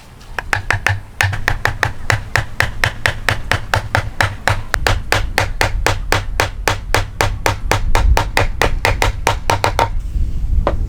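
Rapid, even hammering on wood, about five blows a second. It stops near the end, followed by one more single strike.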